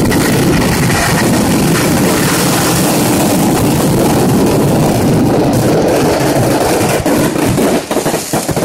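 Mass temple-festival fireworks (vedikettu), thousands of firecrackers going off so fast that they merge into one loud, unbroken din. Near the end it breaks up into separate sharp bangs.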